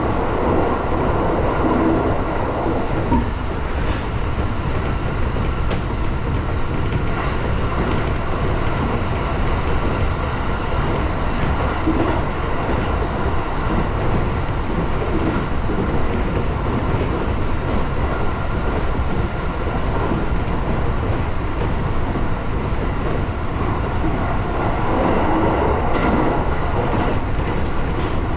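Cab-interior sound of a 701-series electric multiple-unit train running steadily at speed. Wheels rumble on the rail, with a faint steady whine and occasional clicks over rail joints.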